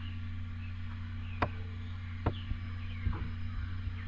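Steady low electrical hum with a few sharp single clicks, the first about a second and a half in and the rest spread over the next two seconds.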